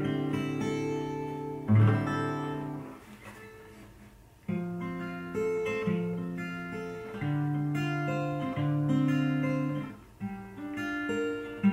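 Acoustic guitar played fingerstyle. A chord is struck about two seconds in and rings out, then from about four and a half seconds in a steady picked pattern of bass and melody notes follows, with a brief break shortly before the end.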